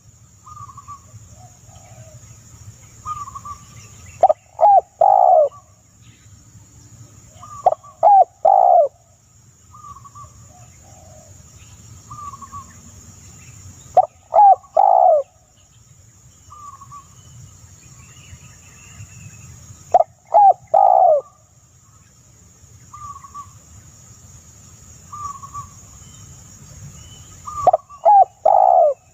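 A bird calling in loud bursts of three or four quick falling notes, repeated every few seconds, with softer short higher calls between the bursts.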